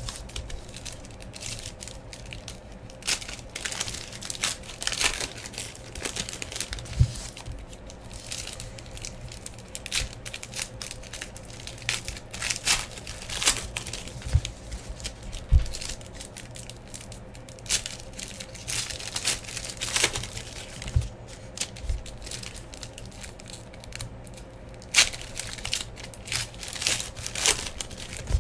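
Foil wrappers of baseball card packs being torn open and crinkled by hand, with irregular crackling and rustling throughout.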